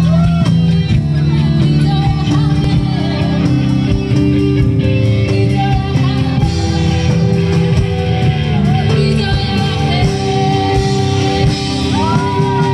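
Live rock band playing through a PA system: electric guitars over a steady drum beat, with a singing voice.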